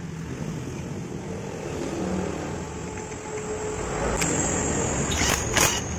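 Flywheel puller being worked on a motorcycle magneto rotor, with a few sharp metallic clicks near the end as the rotor is freed. A steady low engine-like rumble slowly grows louder underneath.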